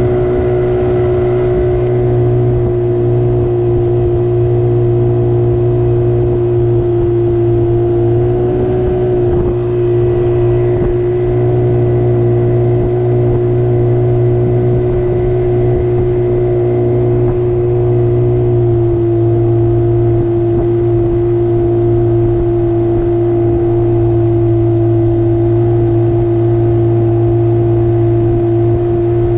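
30-horsepower Evinrude outboard motor running at a steady cruising speed. Its pitch wavers slightly about a third of the way in and settles a little lower past the middle.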